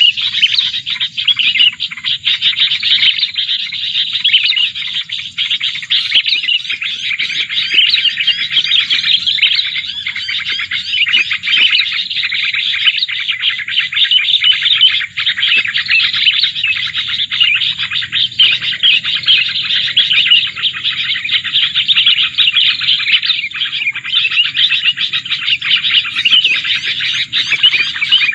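Prinia calls: a loud, dense, unbroken run of fast, high chirps and trills, the sound used to lure plain prinias into a trap.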